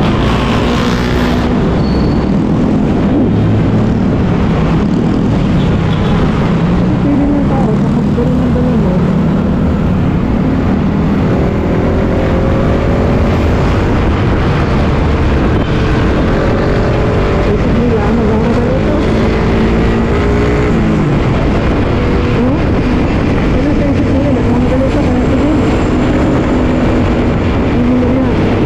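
Suzuki Raider R150 Fi motorcycle's single-cylinder four-stroke engine running under way, its pitch climbing and dropping several times as the revs rise and fall. A steady rush of wind and road noise runs underneath.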